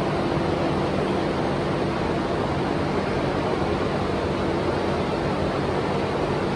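Fan noise: a steady rush of moving air with a low hum, unchanging throughout.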